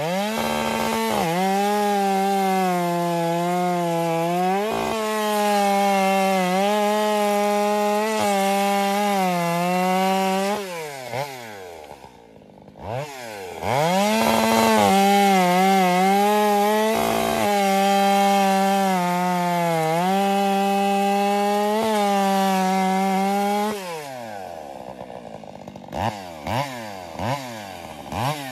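Chainsaw at full throttle, bucking a shagbark hickory trunk, its engine pitch sagging and wavering under load through two long cuts. Around twelve seconds in and again near the end, the throttle is let off and the saw drops to idle, with a few quick blips at the end.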